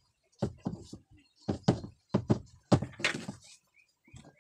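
Opened plastic Bluetooth speaker housing being handled and set down on a wooden workbench: a run of sharp knocks and thunks, about eight in three seconds, with a short scrape about three seconds in.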